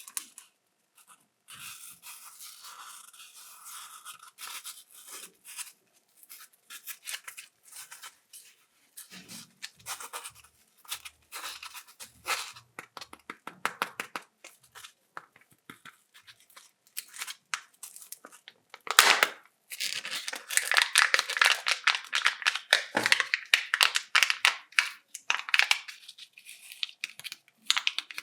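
Kinder chocolate egg wrappers being torn open and crinkled by hand: a run of short crackles and rustles, growing into a long, loud stretch of dense crinkling about two-thirds of the way through.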